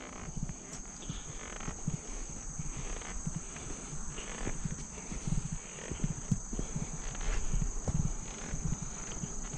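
A hiker's footsteps on a trail, uneven thuds about one or two a second with rustling of clothes and pack, over a steady high insect chirring.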